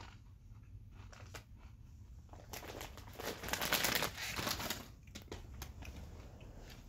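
A crinkly plastic potato-chip bag being handled and rustled, building to a dense crackle for about two and a half seconds in the middle, with a few light clicks around it.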